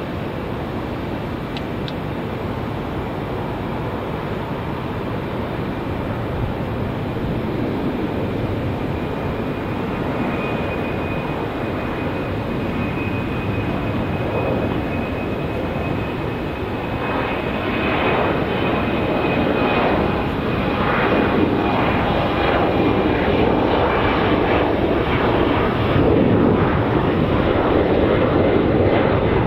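Airliner's jet engines running with a steady roar and a thin high whine, growing steadily louder over about half a minute.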